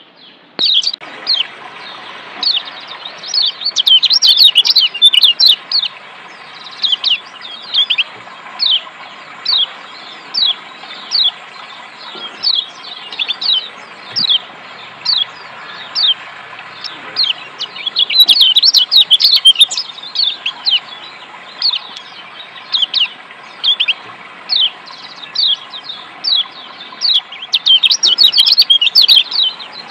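Kecial kuning (Lombok yellow white-eye) giving quick, falling 'ciak' chirps about one or two a second, breaking into faster runs of chirps a few times, over a steady rush of running water.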